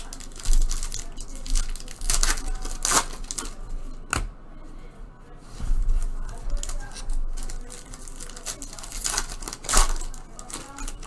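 Foil Panini basketball card packs being torn open and crinkled by hand, with several sharp rips of the wrapper about two, three and four seconds in and again near the end.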